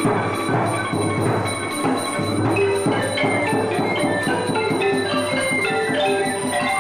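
Traditional Khmer folk dance music: a quick run of short, ringing pitched notes over a sustained low tone.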